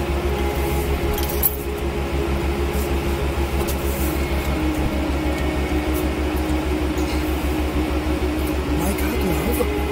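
Vehicle driving: a steady low engine and road drone, with scattered light clicks and rattles.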